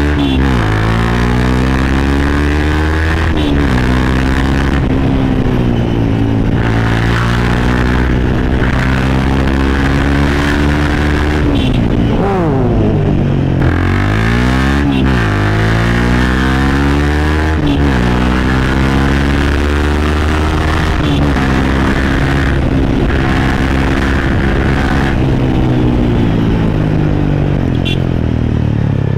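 Honda CBR250R's single-cylinder engine running through an aftermarket Akrapovic-style exhaust while riding: the engine note climbs as it accelerates, then drops sharply at each shift or roll-off before climbing again, about six times over.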